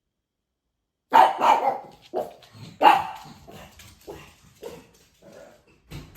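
A dog barking. After a second of silence come a few loud barks, then a string of quieter, shorter ones.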